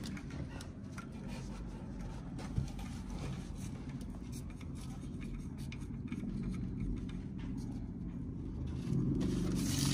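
Hands working a silicone air hose onto the nozzle of a laser air-assist pump: faint rubbing and fiddling noises with a single sharp click about two and a half seconds in, over a steady low rumble.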